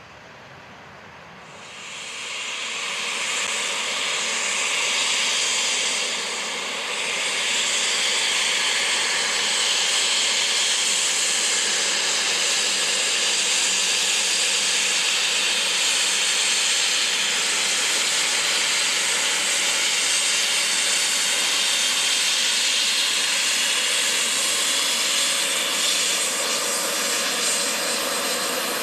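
Turbofan engines of an Embraer 190 airliner running close by: a loud, steady, hissing jet rush that swells in about two seconds in, dips briefly a few seconds later, then holds.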